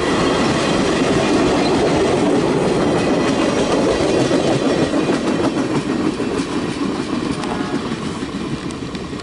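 Amtrak passenger train cars rolling past close by, a steady rumble with wheels clicking over the rail joints. The sound fades from about six seconds in as the last car pulls away.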